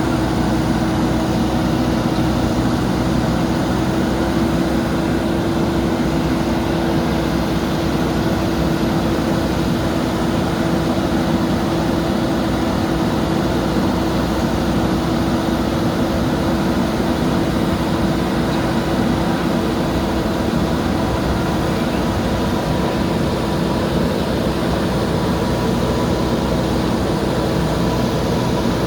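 Backhoe loader's diesel engine running steadily at a constant speed, with a steady tone over the engine noise.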